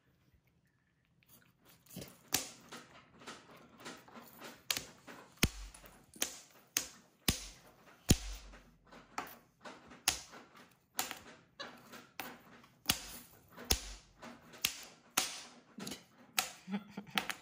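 Monkey knocking and rubbing a nail file on a stone countertop: a long run of sharp taps, about two a second, with scratching between them.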